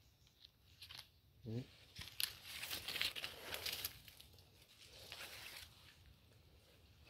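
Coffee branches and leaves rustling and dry leaf litter crackling underfoot as someone lets go of a branch and moves off through the coffee bushes, in a loud spell of crackling from about two to four seconds in and a shorter one about five seconds in.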